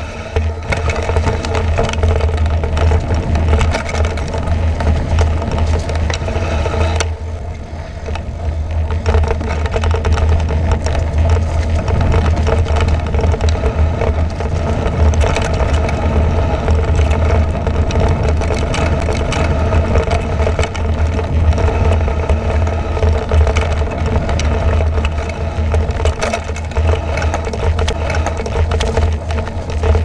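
Mountain bike clattering and rattling as it rides fast over a rough dirt forest trail, with wind rumbling on the bike-mounted action camera's microphone and a steady hum underneath. The racket eases briefly about seven seconds in.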